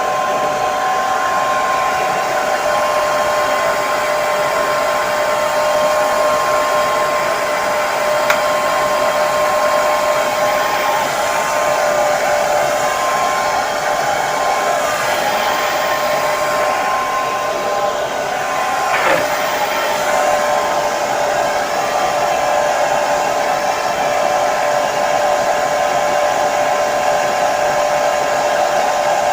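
Hair dryer running steadily: an even rush of blown air with a constant motor whine.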